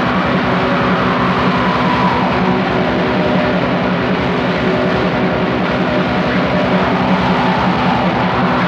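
Raw black metal music: distorted guitars and drums in one dense wall of sound, held at a steady loud level with no break.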